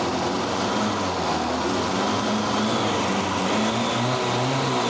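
A classic Lada's four-cylinder engine idling steadily, running on a makeshift single-injector throttle-body fuel injection in place of its carburetor.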